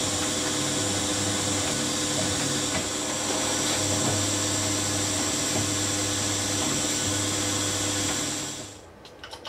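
Pillar drill running steadily while drilling a small hole down into the end of a metal block, the tapping hole for an M4 thread. The motor's steady hum stops sharply about a second before the end, followed by a few small clicks.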